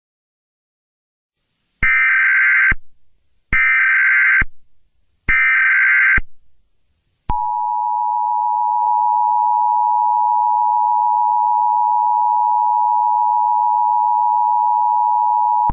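Emergency Alert System (EAS) header tones: three one-second bursts of buzzy SAME data warble, then about seven seconds in the two-tone EAS attention signal, held steady for about eight seconds and cut off abruptly.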